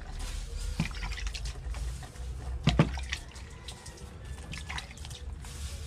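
Wet clicks and crackles of raw spiny lobster shell and innards being pulled apart by hand during cleaning, with a sharp double crack a little under three seconds in.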